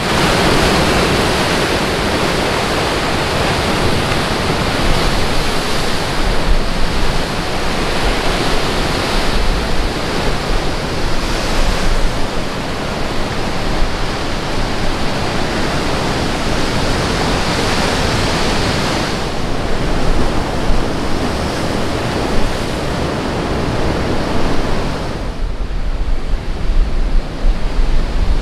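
Surf on a rough sea breaking against a rocky shore, a steady wash of waves with wind buffeting the microphone. About 25 seconds in, the hiss of the surf drops back and the low wind rumble on the microphone comes forward.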